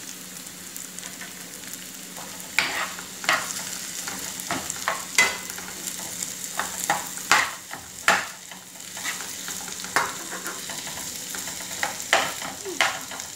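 Chopped onions, crushed garlic and ginger sizzling in hot oil in a frying pan, sautéing toward brown. A spatula stirs them, scraping and knocking against the pan in irregular strokes from about two seconds in.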